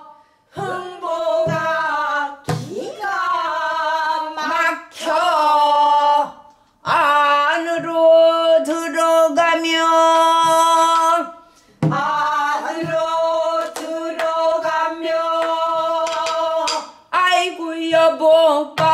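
A woman singing pansori in long melismatic phrases, holding wavering notes for several seconds at a time. A few low strokes on a buk barrel drum come near the start and again about twelve seconds in.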